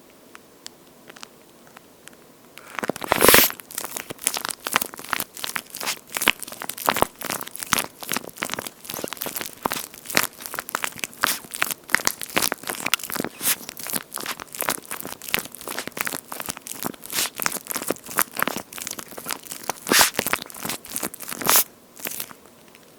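Water-filled squishy toy shaped like charcoal-grilled two-layer toast being squeezed and kneaded, a dense run of rapid crackles starting about three seconds in and stopping shortly before the end, loudest at the start and again near the end.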